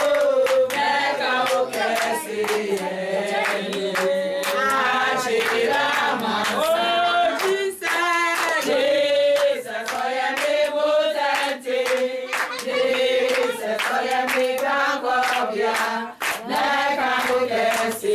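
A group of people singing together in chorus, with hands clapping along.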